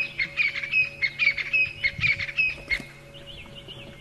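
A bird calling in a fast run of repeated calls, about four a second, that stops near the end; fainter, quicker chirps carry on after it, over a faint steady hum.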